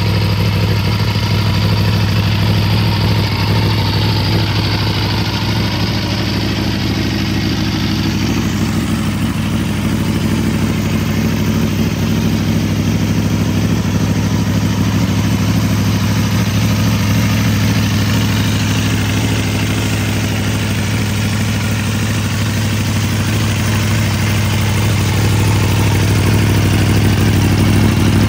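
2016 Aprilia Tuono V4 1100RR's V4 engine idling steadily, growing a little louder near the end.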